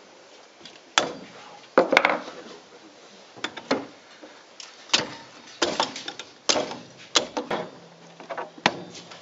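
Handling noise from a spoked-wheel model cannon and tools: a string of irregular sharp knocks and clatters of wood and metal as they are picked up, moved and set down.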